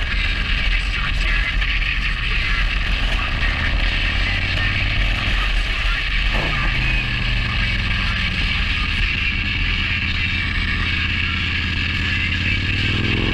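Wind buffeting the helmet camera's microphone on a moving Harley-Davidson, with the motorcycle's V-twin engine running underneath as a steady low rumble.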